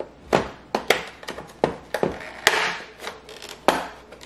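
The plastic snap clips of a Roomba 614 robot vacuum's top cover click and snap as the panel is pried off by hand. It is a series of sharp clicks, with a brief plastic scrape a little after two seconds in.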